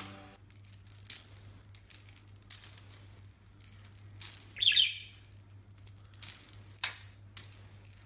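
Small plastic lattice toy ball with a bell inside, jingling and rattling in short bursts about once a second as it is tossed to a budgerigar and knocked about. A faint steady low hum runs underneath.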